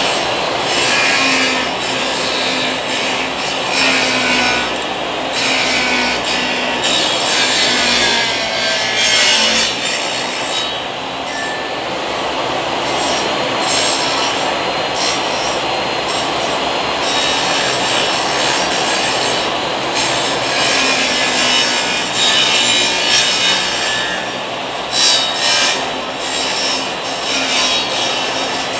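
Power saw cutting through wood, a continuous loud rasping noise that varies unevenly as the blade works through the cut.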